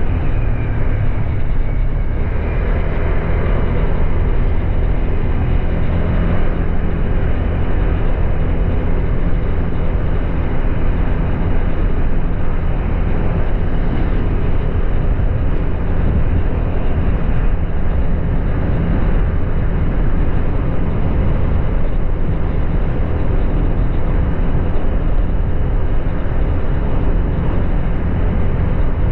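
Honda Click 125i scooter's single-cylinder engine running at a steady cruise while being ridden, with a constant rush of wind over the microphone.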